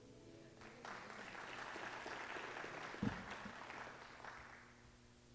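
A small congregation clapping for a few seconds, starting about a second in and dying away, over the last chord of an acoustic guitar fading out. A single dull thump about three seconds in.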